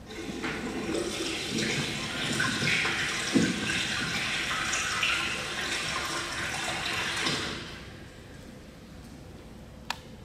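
A toilet-flush sound effect: a rush of flushing water lasting about seven and a half seconds that then stops. A single sharp click follows near the end.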